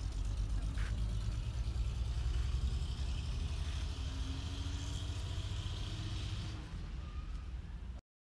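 Motorcycle riding on a dirt road, its engine running under a steady heavy low rumble of wind on the bike-mounted camera's microphone. The sound cuts off abruptly near the end.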